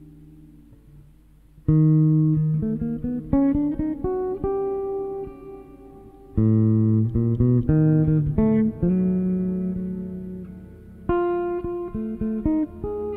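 Solo jazz guitar played on a sunburst Stratocaster-style electric guitar: a held chord dies away, then three phrases each open with a loud chord and run on into quick single notes.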